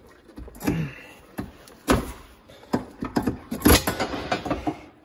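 Old rear coil spring being wrestled out of a Fox-body Mustang's rear suspension by hand: a series of irregular metallic clunks and scrapes, the loudest a little before the end.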